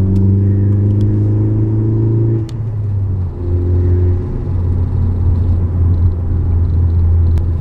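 2017 Ford Focus ST with a CNT Racing cat-back exhaust, heard from inside the cabin with the windows up: a low engine hum climbing slightly in pitch under acceleration, a brief dip about two and a half seconds in as the driver shifts up, then a steady low hum while cruising.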